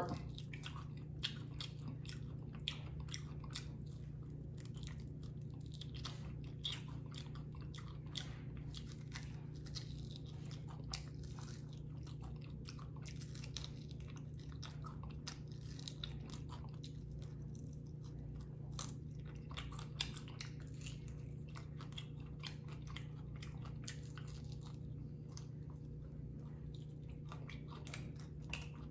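Close-miked chewing and biting of crunchy fried chicken wings: a dense run of small crunches and mouth clicks, with a few sharper crunches standing out, over a steady low hum.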